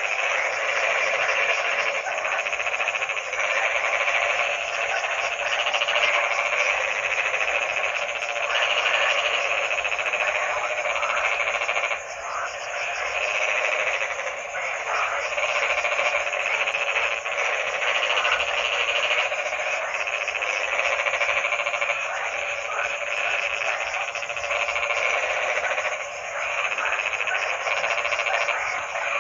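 A dense chorus of many frogs croaking together, their calls overlapping into a continuous rattling din with no pause.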